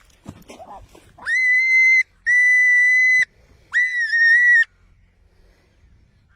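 Three long whistled notes at the same high pitch, each about a second long; the first and third slide up into the note as they start.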